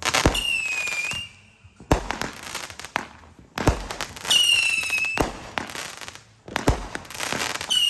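Fireworks going off: sharp bangs about every one and a half seconds. Three of them are followed by a high whistle that falls slightly in pitch and lasts about a second.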